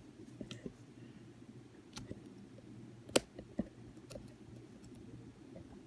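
A few small, sharp metallic clicks, the loudest about three seconds in, as pliers press a spring-bar pin into a watch strap's lug hole, over a faint steady hum.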